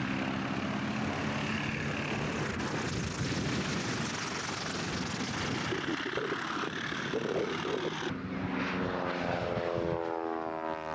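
Propeller-driven warbird airplane with a piston engine flying past. The engine drones, then near the end its pitch falls as the plane passes by.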